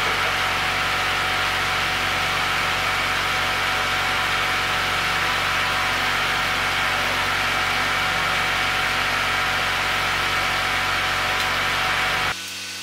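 A steady machine drone with a whooshing hiss and a faint hum, unchanging until it drops abruptly to a quieter hum near the end.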